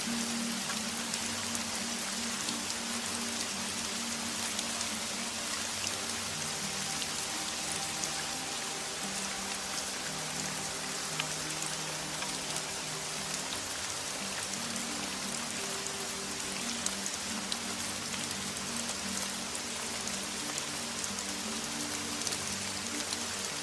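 Steady rain falling, a dense hiss with fine drop ticks, under soft music of held low notes that shift every second or two.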